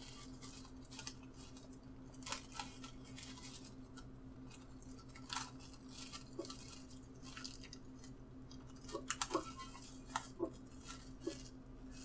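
Faint crinkling and crackling of thin plastic as a heat-sealed bag is pulled off the plastic sheet and handled, in scattered small clicks with a short cluster near the end. A steady low hum runs underneath.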